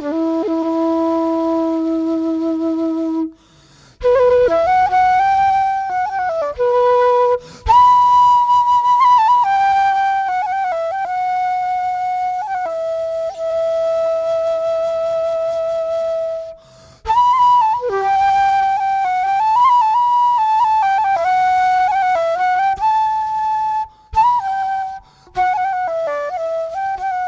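Background music: a slow solo flute melody with long held notes and short pauses between phrases.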